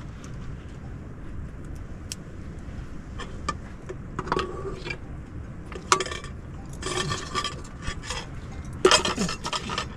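Kitchenware clinking and clattering, sparse at first and busier from about three seconds in, over a low steady rumble.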